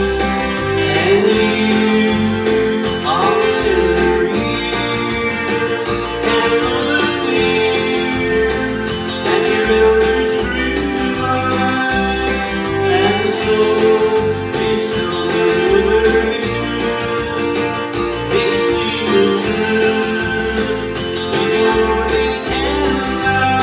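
Piano accordion playing a song, held chords and melody over a bass line that steps from note to note.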